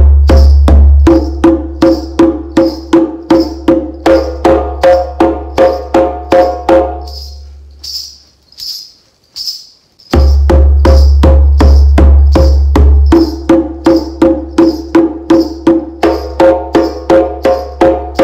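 A djembe played with bare hands in an even play-along rhythm, working through bass, tone and slap strokes, then falling still for the silent notes for about two seconds before starting again. A steady high tick keeps the pulse throughout, the pause included.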